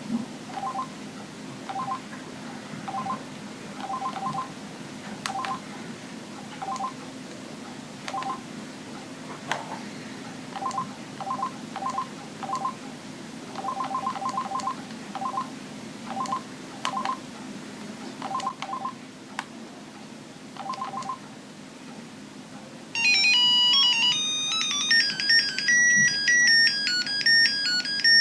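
Mitsubishi Trium Astral mobile phone: key beeps, short two-tone bleeps at an irregular pace, often in quick runs, as its buttons are pressed to move through the menus. About 23 seconds in, a louder, high-pitched electronic beeping ringtone melody starts playing from the phone's speaker.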